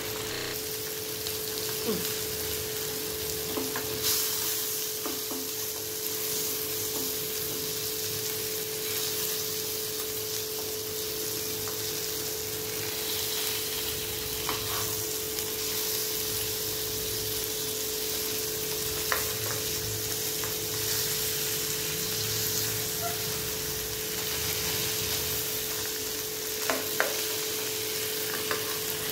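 Bata fish frying in butter and oil in a shallow pan: a steady sizzle. A few sharp clicks come as a spatula turns the fish against the pan. A steady faint hum runs underneath.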